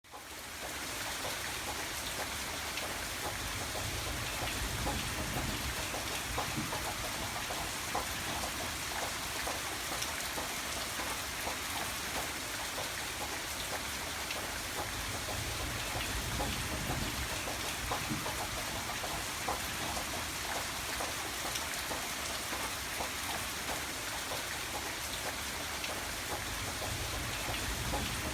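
Hard rain heard from indoors: a steady dense hiss with many small drop ticks on a surface, and a low rumble that swells now and then. It fades in over the first second.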